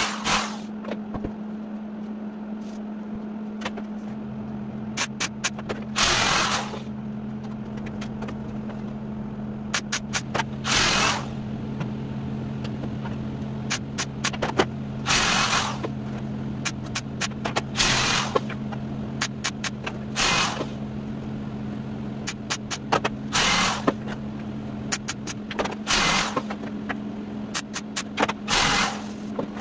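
MIG welder tack-welding thin sheet-metal body panel: short bursts of welding every few seconds, with many brief clicks between them. A steady low hum runs underneath.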